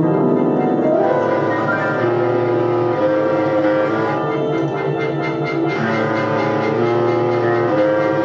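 Live improvised ensemble music from tenor saxophone, bass clarinet, piano and Recosynth electronics: several long held notes overlap and step to new pitches every second or so.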